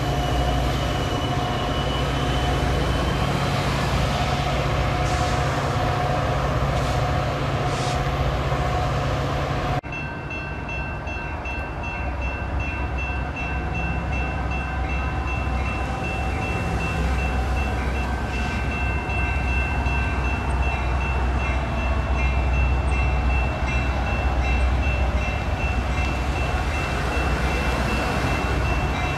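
Metra commuter train's diesel locomotive running as the train approaches, a steady low drone with steady ringing tones above it. About ten seconds in the sound changes abruptly to a quieter drone with a high steady ringing and a fast repeating pulse, bell-like.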